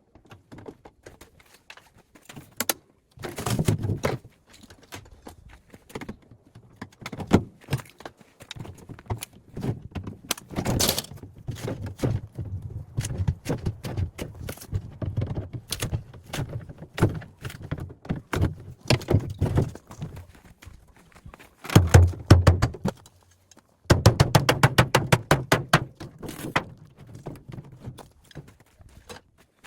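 Irregular knocks, clanks and rattles of hand tools working on a refrigerator's metal and plastic parts as it is taken apart. Near the end comes a quick, even run of clicks, like a ratchet or a screw being turned.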